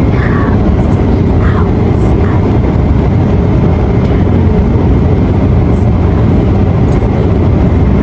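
Airliner cabin noise: a steady, loud rush of jet engines and airflow heard from inside the plane, with faint voices in the first couple of seconds.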